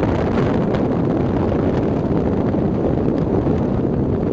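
Steady rushing wind and road noise of a moving car, heavy in the low range, with wind buffeting the microphone.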